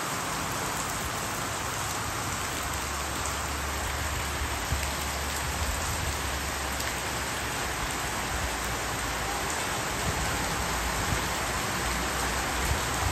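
Heavy tropical rain pouring steadily on a road and the foliage around it, an even, unbroken hiss of downpour.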